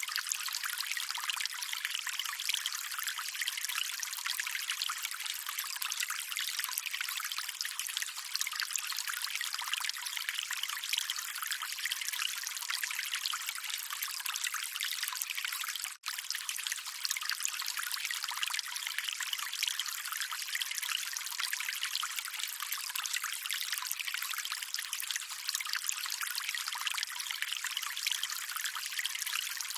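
Calm running water, a steady even rush with no low rumble, cutting out for an instant about halfway through.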